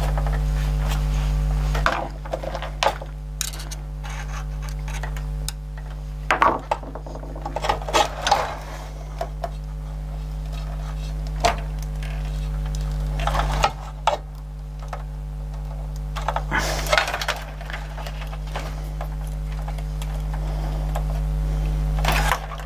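Scattered small clicks and rattles of a Tanashin cassette deck mechanism being handled as a new rubber drive belt is threaded on, over a steady low hum.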